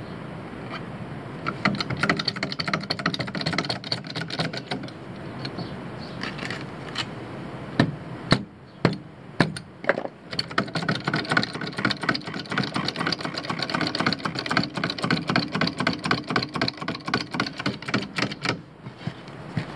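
Bottle jack being pumped by its handle to raise the vehicle: fast runs of metallic clicking, broken in the middle by a few single louder knocks.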